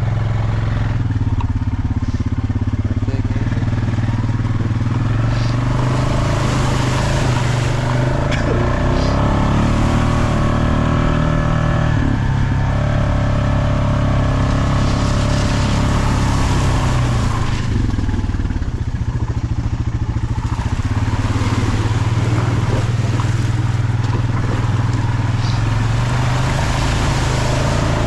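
Off-road vehicle engine running on the trail, its pitch rising and falling with the throttle, with stretches of harder revving.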